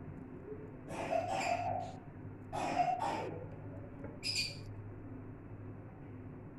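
Wet squelching of hands rubbing a thick yogurt-and-spice marinade into raw chicken, in three short bursts over the first few seconds.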